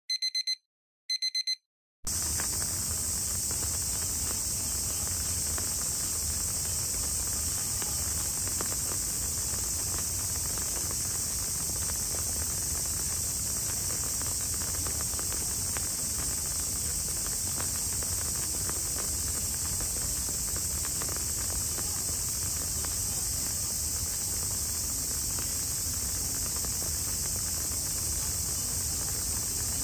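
Two short electronic beeps, followed by a steady, high-pitched insect chorus.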